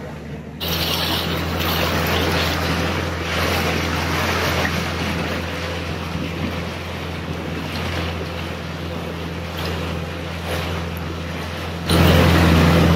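Outboard motor running at steady speed on a small open boat under way, with wake water rushing past the hull and wind on the microphone. The sound gets louder less than a second in and again near the end, as the motor gets closer.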